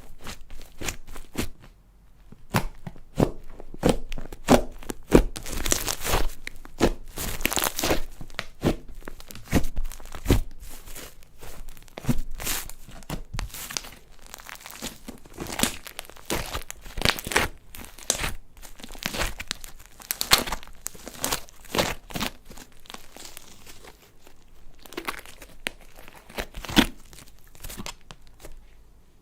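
Slime being kneaded, stretched and squished by hand, giving rapid irregular crackling and popping.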